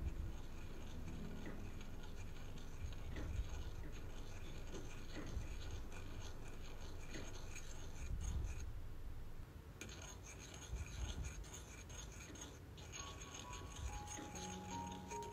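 A thin metal stirring stick scraping and clicking against the inside of a small metal wax-melting spoon as melted sealing wax is stirred, in quick irregular strokes with a short pause a little past halfway. Soft background music comes back near the end.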